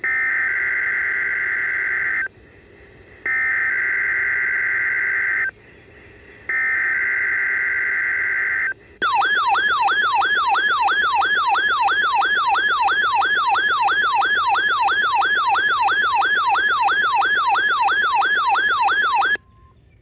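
NOAA Weather Radio Required Weekly Test through a RadioShack weather radio's speaker: three bursts of the SAME digital header, each a raspy data screech about two seconds long with a one-second pause between. Then the receiver's alert alarm, a fast warbling tone rising and falling about three times a second, runs for about ten seconds and cuts off suddenly.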